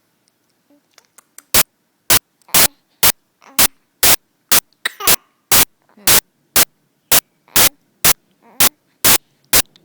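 A steady series of sharp, loud knocks, about two a second, starting about a second and a half in.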